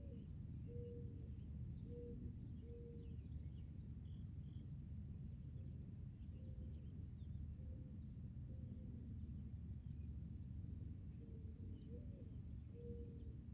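Garden ambience of insects keeping up a steady, high-pitched drone, with short low calls repeating every second or so, a few rising at the end, and faint scattered chirps.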